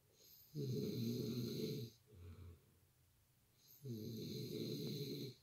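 A man snoring really loud in his sleep: two long snores about three seconds apart, with a softer breath after the first.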